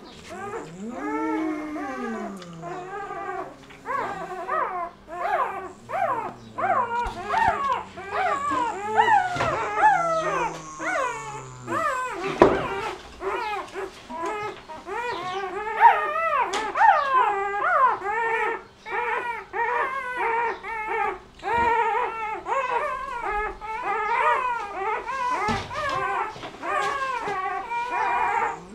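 Newborn Doberman puppies crying without a break: short, high squeals and whines, several a second, with a lower falling whine about a second in and again around ten seconds in.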